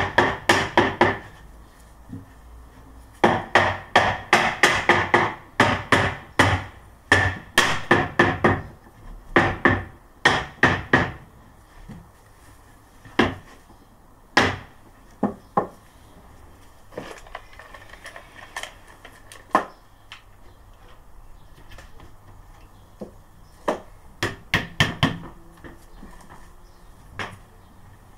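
Rubber mallet knocking Baltic beech plywood beehive panels into their slots: runs of quick, sharp knocks, several a second, with short pauses between. In the second half the knocks come singly or in small groups, farther apart.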